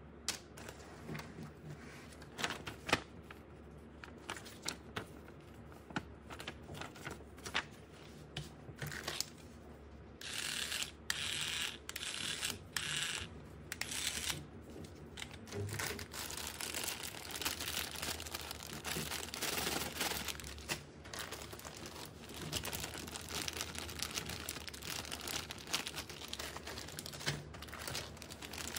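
Packaging being crinkled and torn open during unboxing, with scattered light clicks and taps at first, then longer bouts of crinkling from about ten seconds in.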